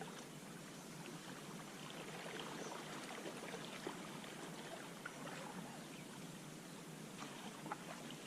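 Faint water around a canoe and its paddle: scattered small drips and trickles over a soft, steady wash of water.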